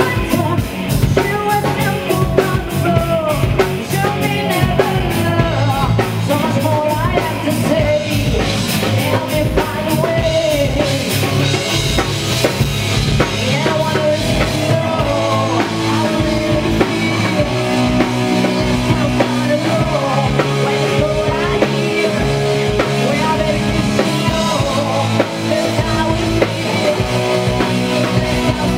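Live metal band playing: female lead vocals over distorted electric guitars, bass, keyboards and a pounding drum kit, with long held notes in the second half.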